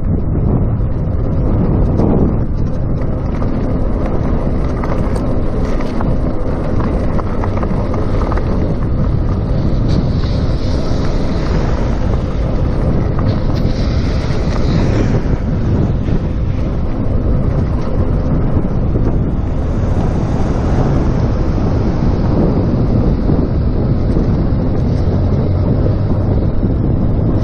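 Wind buffeting the microphone of a chest-mounted action camera on a moving electric bicycle, a steady loud low rumble, with a hiss swelling twice near the middle.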